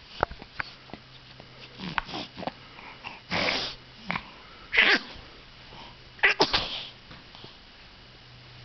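A baby's sneezing fit: a string of small, sharp sneezes, three loudest in the middle about a second and a half apart.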